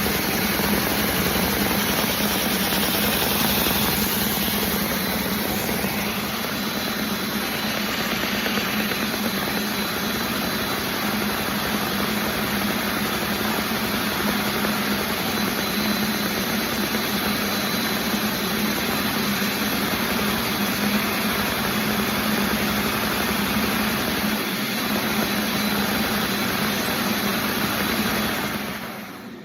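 A homemade model inline-four engine running steadily, with a constant hum, then winding down and stopping about a second before the end.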